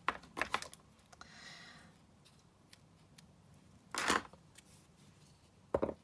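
A few sharp clicks and a soft brief rustle as craft tools and linen thread are handled on a work mat, with the loudest clicks about four seconds in and just before the end.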